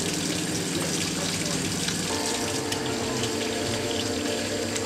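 Kitchen mixer tap running into a stainless-steel sink while soapy hands are rubbed and rinsed under the stream, a steady splashing. Steady tones sit underneath and change pitch about two seconds in.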